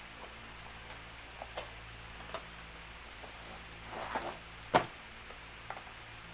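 A handbag with a metal chain strap being handled and taken out of its wrapping: scattered rustles and light clicks, the sharpest click about five seconds in.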